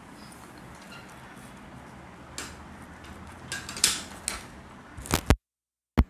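Handling noise on a phone's microphone: a low steady room hum, then from about two seconds in a run of rubs, clicks and knocks as the phone is picked up and moved, loudest near the end. The sound cuts off abruptly for about half a second, with one last click.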